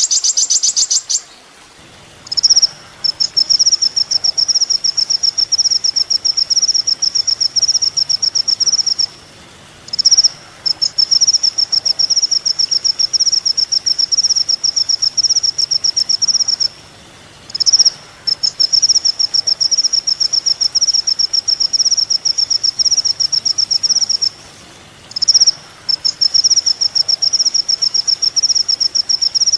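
Sunbird (kolibri ninja) singing: after a short burst of fuller song at the start, it gives a short high note followed by a long, fast, even trill lasting about six seconds, four times over with brief pauses between.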